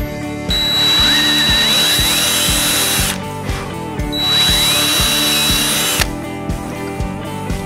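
Cordless drill boring into a wooden board in two runs of about two and a half and two seconds, each a high motor whine that rises as the drill spins up. Background guitar music with a steady beat plays underneath.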